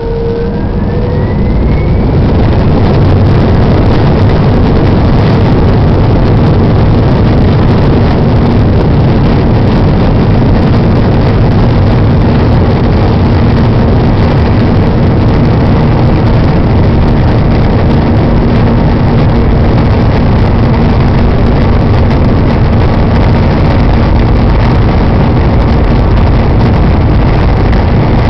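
Airbus A320's jet engines heard from inside the cabin during the take-off run: a rising whine and a quick climb in loudness over the first couple of seconds as they spool up to take-off thrust, then a steady loud roar.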